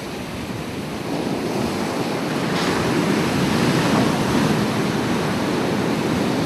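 Ocean waves breaking and washing on shore, a continuous rushing surf that swells from about a second in, with a wave crashing about two and a half seconds in.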